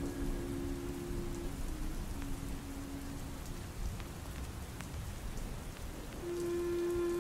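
Soft background music of held low notes that stop for a few seconds mid-way and return near the end, over a steady rain-like hiss with faint scattered ticks.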